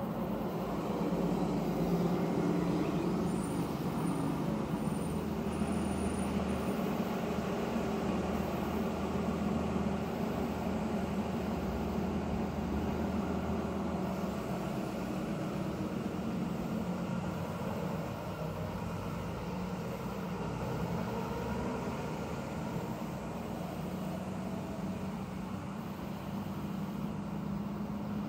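Steady rumble of a nearby motor vehicle, with a deeper low hum that comes in about five seconds in and fades around fourteen seconds in.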